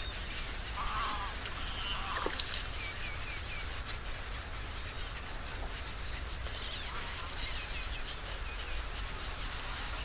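A flock of birds calling: a few louder calls about one, two and seven seconds in, a quick run of four short high chirps near three seconds, and many fainter calls throughout, over a steady low rumble.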